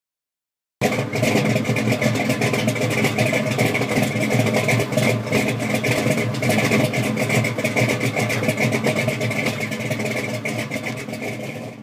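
A loud car engine running, starting abruptly about a second in and fading out near the end.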